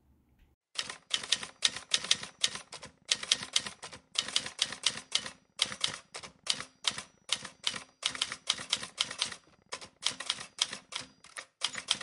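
Rapid key clicks in quick runs of several strokes with short pauses, as in fast typing on a keyboard.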